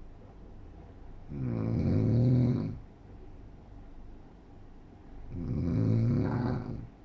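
An adult snoring in sleep: two long snores, each lasting about a second and a half, about four seconds apart, with quiet breathing between them.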